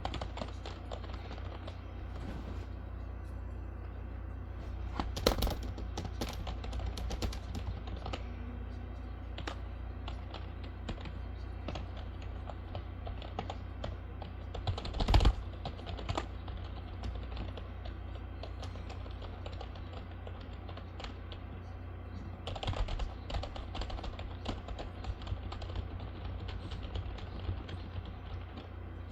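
Typing on a computer keyboard: scattered key clicks, with runs of fast typing about five seconds in and again for the last several seconds, and one louder thump about halfway through. A steady low hum runs underneath.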